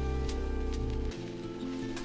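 Background music with sustained low notes, changing about a second in.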